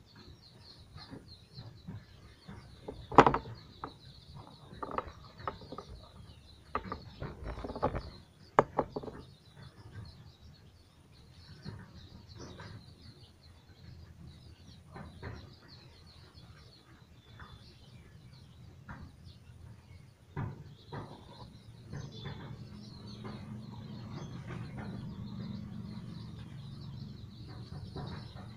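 Scattered small knocks and clicks of a plastic syringe being handled beside a glass vaccine vial on a tiled table, the sharpest about 3 and 8.5 seconds in. Faint bird chirping runs continuously underneath, and a low steady hum comes in about 22 seconds in.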